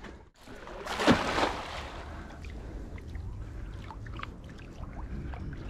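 Water splashing and sloshing, with a louder splash about a second in after a brief dropout. Then a low steady rumble with scattered small clicks and knocks.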